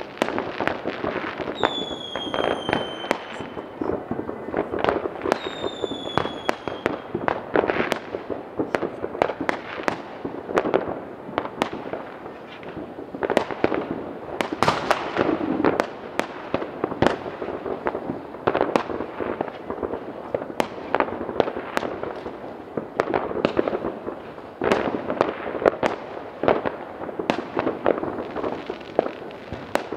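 Many fireworks going off at once: a dense, continuous run of firecracker bangs and cracks, with two short falling whistles from whistling fireworks about two and five seconds in.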